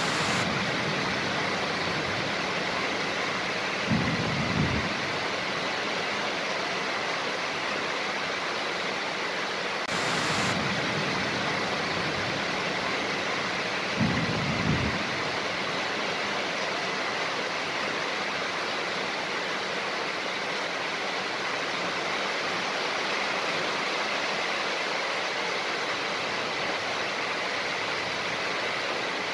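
Heavy rain pouring steadily, a torrential downpour, with two brief low rumbles of thunder about four and fourteen seconds in and a short burst of hiss around ten seconds.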